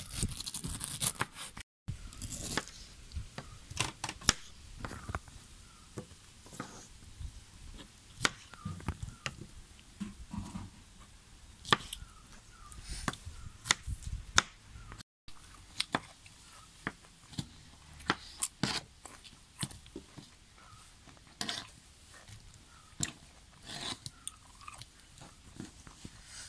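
A knife cutting through ripe pineapple on a plastic cutting board: irregular crunching slices and sharp knocks of the blade on the board, in uneven runs.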